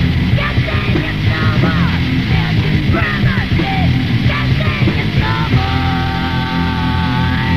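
Crust/hardcore punk band recording from a demo cassette: distorted, dense full-band music with drums. From about two-thirds of the way in, a high note is held steadily to the end.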